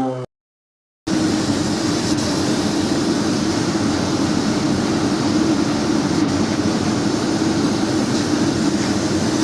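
A short burst of music cuts off, and after a brief gap a woodworking machine starts up and runs steadily: a constant loud hum under an even hiss, with no change in speed.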